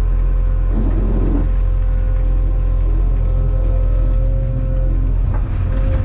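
Inside the cab of a Cat 390F excavator, its C18 diesel and hydraulics run under load with a steady drone and a hydraulic whine. About a second in there is a rough crunching burst as the bucket digs through blasted rock, and near the end a few knocks as rock starts dropping into the haul truck's bed.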